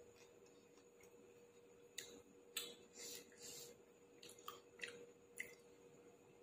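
Faint eating sounds: a person chewing, with scattered small wet clicks and smacks, over a faint steady hum.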